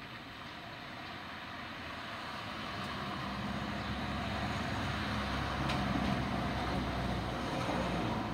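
A motor vehicle passing by: engine hum and road noise growing louder over several seconds, then beginning to fade near the end.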